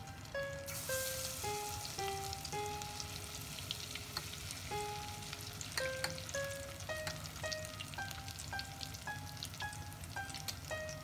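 Oil sizzling and crackling as battered aasa (sea lettuce) tempura fritters deep-fry in a pot, with a louder surge of sizzle about a second in. Background music with a melody of held notes plays over it.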